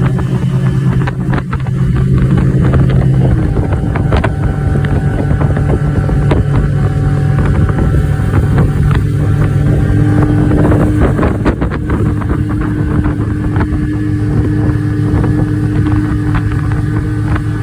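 Boat motor running under way, with wind on the microphone. The engine note shifts about three seconds in, and a higher steady tone comes in about ten seconds in.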